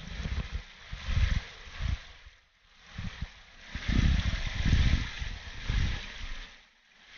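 Wind buffeting the microphone in uneven gusts of low rumble, over the steady hiss of a small stream trickling down a rocky bed.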